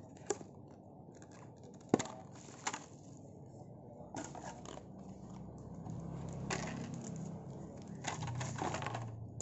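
Hands handling plastic unboxing packaging: three sharp clicks of a clear plastic drive tray in the first few seconds, the loudest about two seconds in, then bouts of crinkling and rustling of plastic and bubble wrap.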